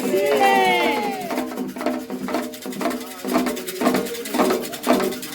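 Candomblé ritual music: voices sing with gliding pitch at the start, then atabaque drum strokes come in at about two a second under the voices.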